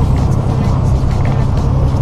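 Steady low drone of a truck's engine and road noise inside the cab while driving, with music playing over it.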